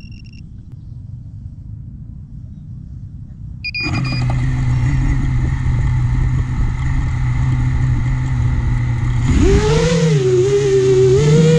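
Small FPV racing quadcopter on the ground: two short electronic beeps, the second about four seconds in, then the motors spin up to a steady idle hum. About nine seconds in, the throttle comes up and the motor whine jumps higher and wavers as the drone takes off.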